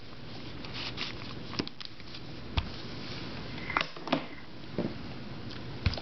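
Plastic puzzle cubes handled on a table: scattered light clicks and a few sharper knocks as one cube is put down and another picked up, over a faint steady hiss.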